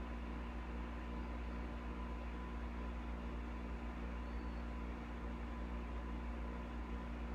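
Steady low electrical hum with a constant hiss and a faint steady high tone: background equipment or room noise, unchanging throughout.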